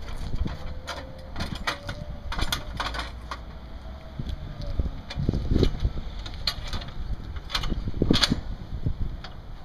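Metal clicks, knocks and clanks of a steel wheel clamp being fitted and adjusted against a pickup's front tyre, irregular throughout with the loudest knocks about five and a half and eight seconds in.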